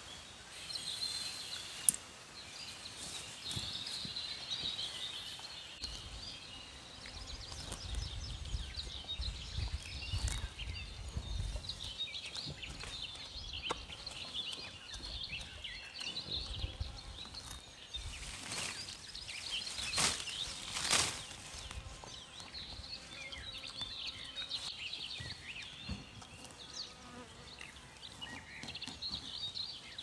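Outdoor rural ambience of many small, high, wavering chirps from birds and insects. A few sharp knocks and some rustling and handling rumble come through, the loudest knocks about two-thirds of the way in.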